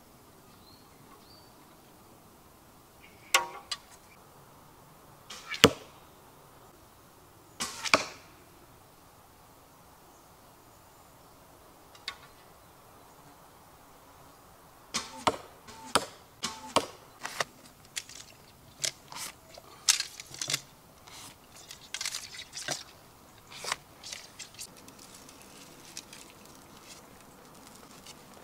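A wooden bow being shot: each release of the string is followed a fraction of a second later by a sharp knock of the arrow striking home, three times in the first eight seconds. A longer run of quick clicks and knocks follows in the second half.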